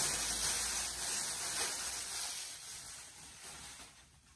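Paper food wrap rustling as hands unwrap it from around takeout food; the rustle fades away near the end.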